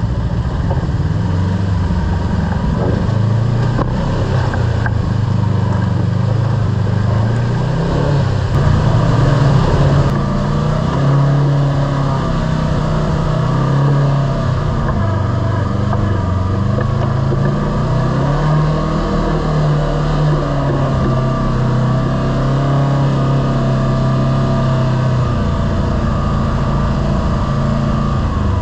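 Kawasaki Teryx KRX side-by-side's engine running under way, its pitch rising and falling every few seconds as the throttle opens and closes, with a steady rush of driving noise.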